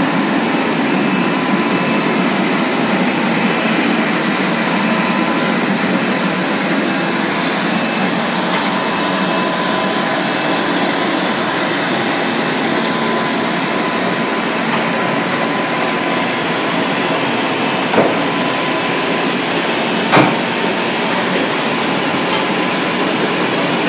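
Automatic mung bean cake frying line running: a steady rushing machine noise with faint high whines on top, broken by two short knocks near the end.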